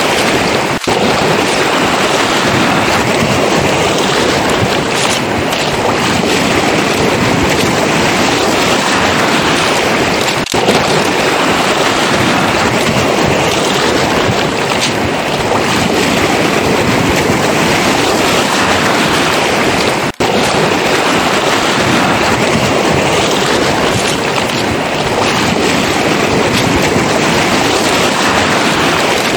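Sea surf washing on a pebble shore with wind rumbling on the microphone, a steady loud rush that swells gently every few seconds. The sound drops out for an instant three times.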